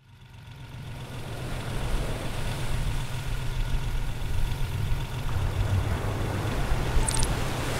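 Sports car engine idling with a low, steady rumble, fading in over the first two seconds.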